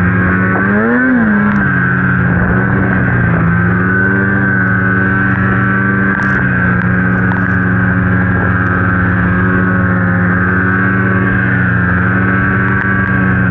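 Polaris Khaos two-stroke snowmobile engine running under throttle through deep powder. It revs up and back down about a second in, then holds a steady pitch.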